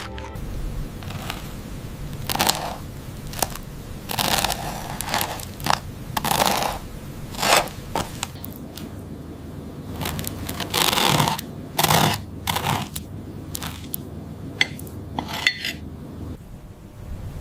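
A string of irregular short scraping and rustling bursts, as of objects or packaging being handled.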